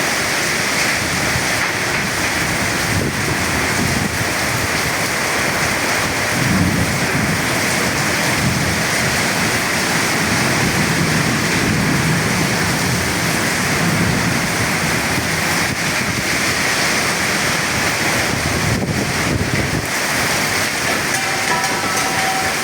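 Heavy rain falling steadily during a thunderstorm, with a long low rumble of thunder that swells about six seconds in and dies away after about fifteen seconds.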